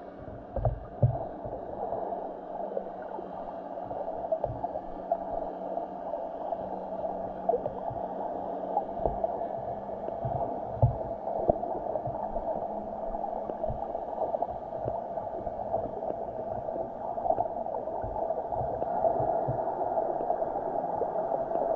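Underwater sound picked up by a submerged camera: a steady muffled wash of water with scattered low thumps, the strongest about a second in and about halfway through.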